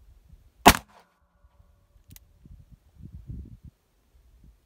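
A single .45 Colt revolver shot from a Ruger Vaquero, about a second in, followed by a faint click.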